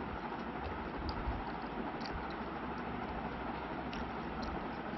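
Steady background hiss, with faint scattered clicks and smacks of chewing and of fingers picking at chicken curry and rice on a plate.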